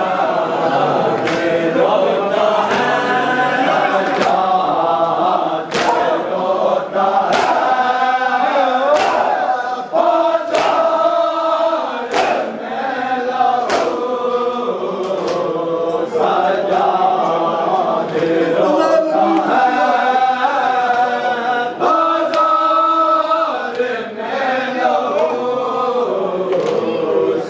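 Mourners chanting an Urdu noha, with the sharp slaps of matam, hands striking chests in time, landing roughly once a second.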